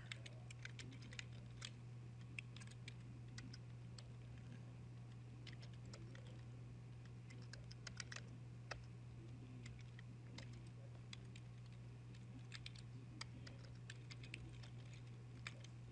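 Computer keyboard typing faintly: sparse, irregular key clicks at a slow pace, over a steady low hum.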